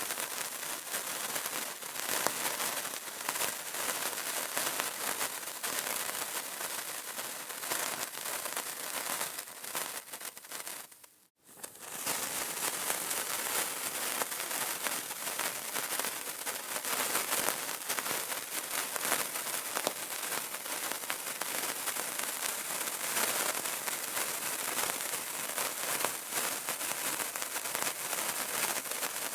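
Burning candle crackling continuously with dense, fine pops and snaps. About eleven seconds in, the crackling briefly fades out to near silence, then comes straight back.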